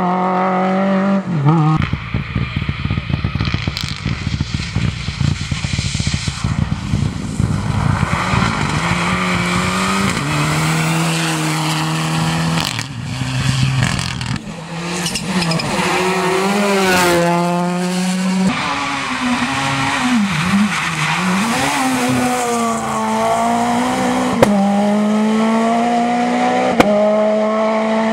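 Rally car engines revving hard and changing gear through a corner as cars pass one after another. The pitch climbs and drops, and there is a dense crackling stretch early on and a fast wavering rev about two-thirds of the way through.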